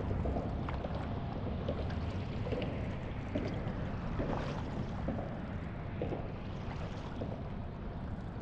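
Small waves of calm seawater lapping and gurgling against a camera held at the waterline, with light splashes at irregular moments over a low, steady rumble.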